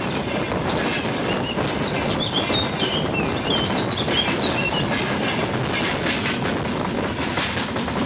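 A freight train rolling overhead: a steady, loud rumble of wagons with the clatter of wheels over the rails. Brief high squeaks come through around the middle.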